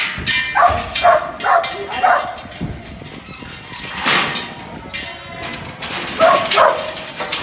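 Kelpie working dog barking at sheep in the yards: a run of four sharp barks about half a second apart, then another run near the end. A loud rushing clatter comes about four seconds in.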